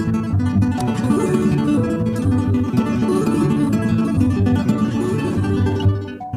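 Background music: fast plucked acoustic guitar in a flamenco style.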